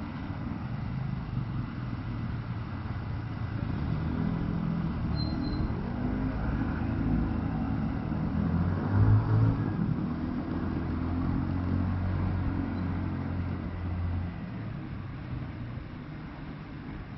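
A motor vehicle's engine passing close by on a city street: a low engine hum that builds over a few seconds, is loudest about nine seconds in, and fades away around fourteen seconds, over steady street background noise.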